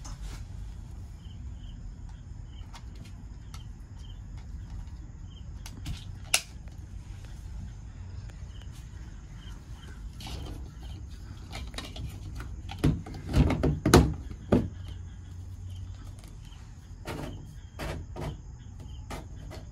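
Plastic clicks and knocks as a dome security camera is handled and twisted back onto its ceiling mount, with a loud cluster of knocks about two-thirds through and a few more clicks near the end. Under it runs a low steady hum with faint regular insect chirping.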